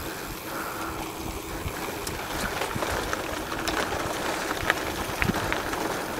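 Mountain bike riding over a rutted dirt trail: wind buffeting the microphone and tyres rolling on dirt, with scattered sharp clicks and rattles.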